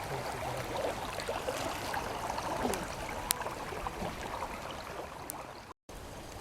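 River water flowing steadily, a continuous rushing, with the river running high after weeks of rain. The sound cuts out briefly near the end.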